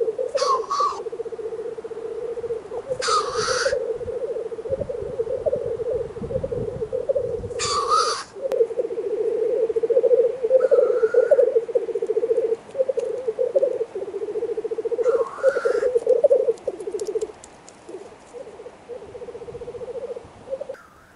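Black grouse cocks at a spring lek, bubbling a continuous low cooing murmur, broken by several loud sneezing hiss calls ('chu-wheesh'). The bubbling thins out and breaks up near the end.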